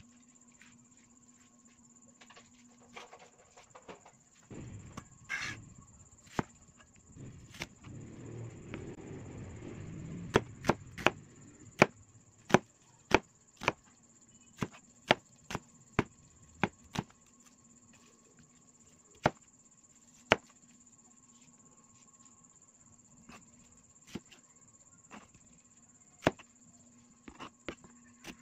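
Cleaver blade chopping down onto a cutting board while slicing a red onion: after several seconds of rustling handling, a run of sharp single chops about one and a half a second, then scattered chops and a quicker burst near the end.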